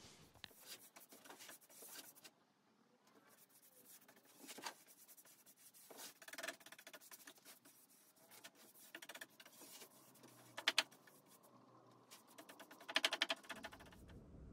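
Faint workbench handling sounds: a rag wiping UV oil along a hardwood board, with scattered light clicks and taps. Two sharp clicks come about eleven seconds in and a short clattering run of ticks near the end.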